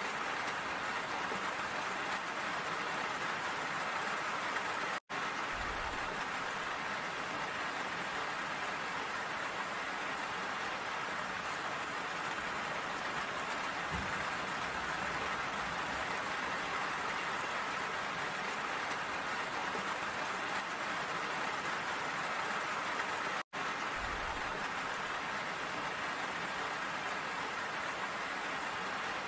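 Steady rain falling, an even hiss of drops. The sound cuts out for a split second twice, about five seconds in and again about two-thirds of the way through.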